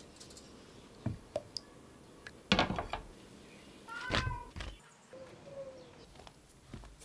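Cookware being handled: a few scattered knocks and clatters, loudest about two and a half seconds in, then a short clink with a brief ringing tone about four seconds in.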